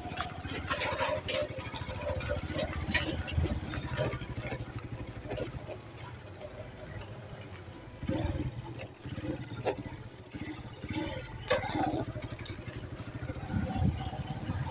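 Kawasaki Boxer motorcycle's single-cylinder engine running at low speed over a rough, potholed dirt track, with knocks and rattles from the bumps. About eight seconds in the sound suddenly gets louder, and a high thin whine runs for a few seconds.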